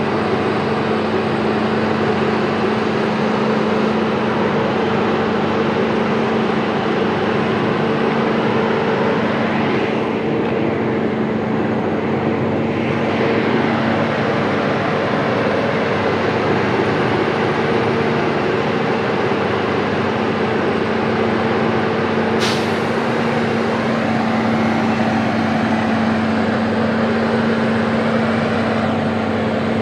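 Heavy truck diesel engine running at a steady, unchanging pitch. A single brief sharp click comes about 22 seconds in.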